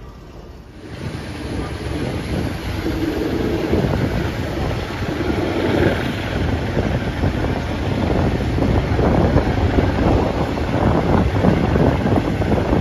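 Rushing wind and rumble of a moving passenger train, buffeting the microphone, building up about a second in and staying loud.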